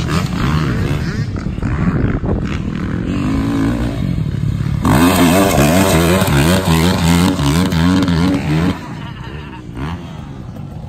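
Dirt bike engine revving on and off as it is ridden over jumps, its pitch rising and falling with the throttle. It is loudest as the bike passes close by, then drops to a fainter drone about three-quarters of the way through as it rides away.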